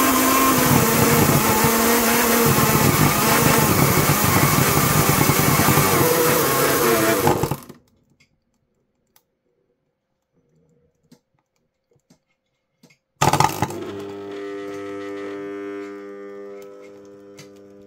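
Belt-driven stand mixer's motor running flat out at about 360 volts, a loud whine that wavers in pitch, then cutting out abruptly about seven and a half seconds in as the overvolted motor fails and starts to smoke. A few faint clicks follow. Music starts about thirteen seconds in.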